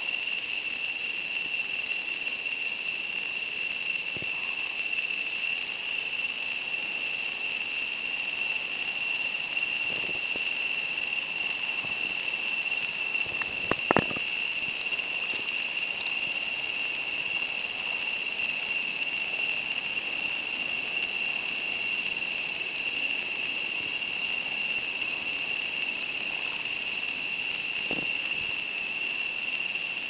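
Steady, unbroken high-pitched insect chorus of the forest, with a brief double click about halfway through.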